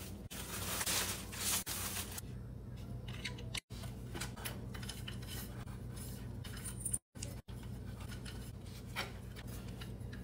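Clear plastic packaging rustling and crinkling as small toys are unwrapped, followed by scattered light clicks and knocks of wooden beads and a wooden bar being handled, broken by a few abrupt dropouts.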